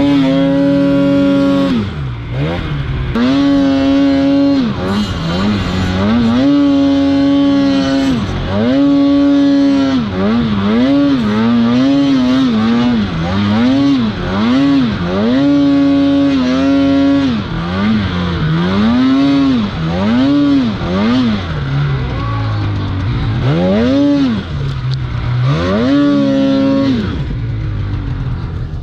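Polaris 850 two-stroke twin snowmobile engine with SLP Stage 2 twin pipes, revved hard and let off again and again while pushing through deep powder: each rev climbs, holds high for about a second, then drops back.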